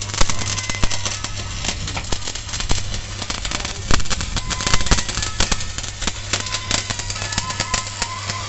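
Stick-welding arc on the seam of a 6 mm steel pile casing: the electrode crackling and spitting steadily, over a steady low hum.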